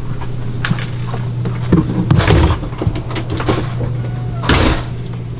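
Handling noise from hands working at the base of an RV toilet while fitting nuts onto its floor bolts: light clicks and rustling, with two louder scuffs about two seconds in and near the end, over a steady low hum.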